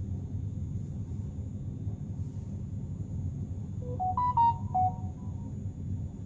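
Short electronic chime from a Samsung Galaxy Note 10+ phone's speaker: five quick notes stepping up and then back down, about four seconds in, as the phone comes up to its lock screen after a system update. A steady low hum lies underneath.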